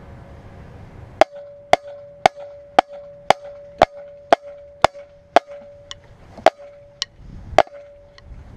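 Marching snare drumsticks clicking out a steady beat, about two sharp clicks a second, over a lingering ring from the drum. The clicks start a little over a second in and stop shortly before the end.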